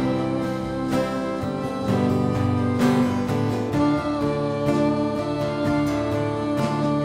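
Worship band playing an instrumental passage of a song, with guitar and sustained chords that change every second or so.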